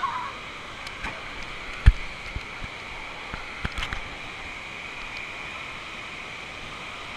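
Steady rushing noise of running water in an indoor water park. A sharp knock comes about two seconds in, with a few fainter taps around it.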